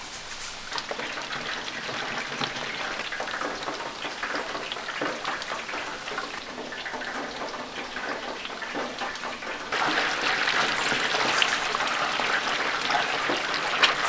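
Batter-coated frogs deep-frying in a tray of hot oil: a steady sizzle full of small crackles, stepping up louder about ten seconds in.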